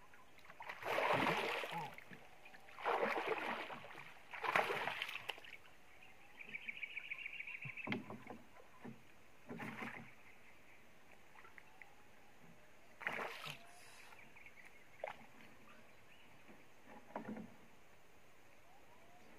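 Water splashing and sloshing beside a small wooden boat as a set fishing line is hauled in by hand: three loud splashes in the first five seconds, then several shorter, smaller splashes spread through the rest.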